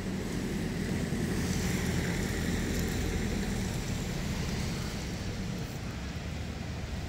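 Steady low outdoor rumble and hiss, with no distinct event standing out.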